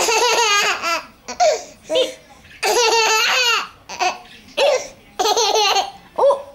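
Baby laughing in repeated bursts of high, wavering laughter: two long peals about a second each, one at the start and one about two and a half seconds in, with several short laughs between and after.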